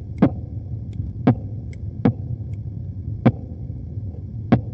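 Instrumental break in the backing track of a song: a low steady drone with sharp, percussive hits about once a second, unevenly spaced.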